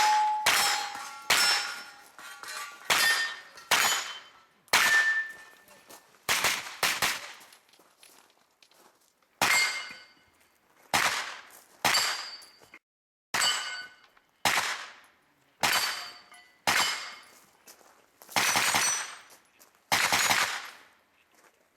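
Pistol-caliber carbine firing a string of single shots at irregular intervals of about a second, the hits ringing off steel targets with a clang. There is a pause of a couple of seconds in the middle of the string.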